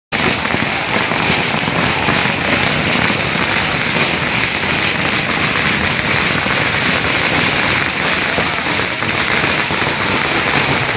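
A large crowd cheering and screaming without a break, over a dense, steady crackling.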